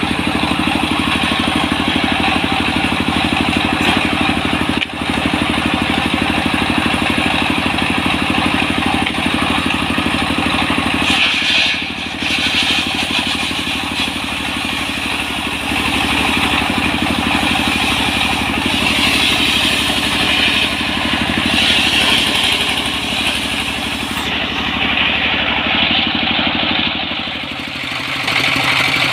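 A stationary diesel engine runs steadily with a fast, even knock, driving a circular saw bench whose blade rips a split wadang log lengthwise into planks. The hiss of the blade cutting the wood swells and eases several times as the timber is pushed through.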